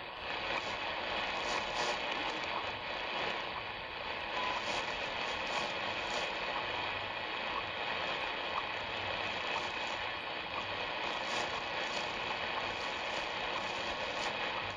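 Shortwave static hiss from a portable radio's speaker on the 5 MHz time-signal frequency, with the faint short ticks of WWVH's once-a-second time pulses coming through the noise.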